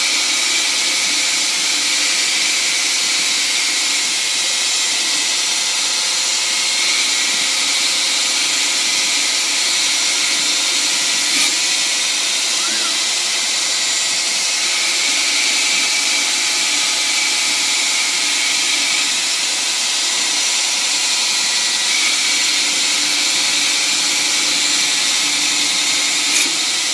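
Grizzly G0602 benchtop metal lathe, converted to CNC, running a test program: a steady machine whine and hiss with several steady tones. A sharp click comes about eleven seconds in and another near the end.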